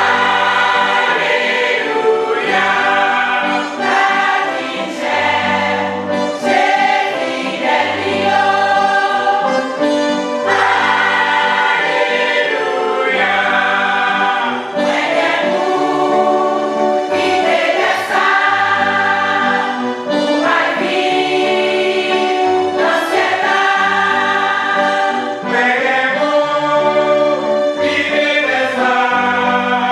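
Mixed church choir of women and men singing a gospel hymn in full voice, with low bass notes held underneath.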